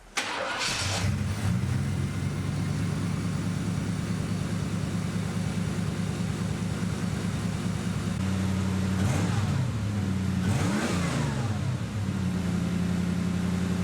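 Third-generation F-body Camaro/Firebird engine starting up and idling on a newly replaced fuel pump, blipped twice about nine and eleven seconds in before settling back to idle.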